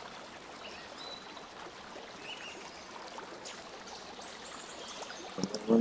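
Faint steady hiss of an open microphone's room noise, with a short louder sound near the end.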